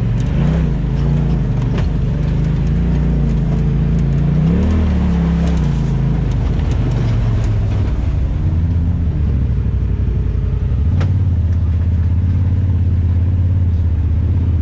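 Off-road vehicle's engine running on a trail ride, its pitch rising and falling with the throttle, with a few sharp knocks along the way; about eleven seconds in it settles to a steady, even note.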